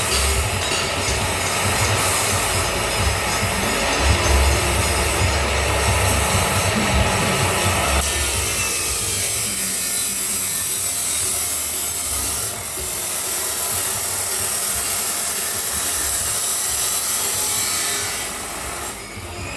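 Grinder cutting through stainless steel pipe, a continuous harsh grinding that turns higher and hissier about eight seconds in, dipping briefly about two-thirds of the way through and again just before the end.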